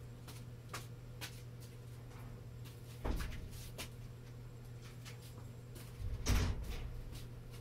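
Two dull knocks, one about three seconds in and a longer one about six seconds in, over a steady low hum and scattered faint clicks.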